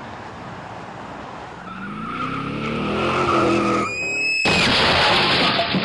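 Road noise rising, then tyres squealing briefly in a skid and, about four and a half seconds in, a sudden loud crash as a small hatchback slams into a lorry's trailer, the din lasting about two seconds.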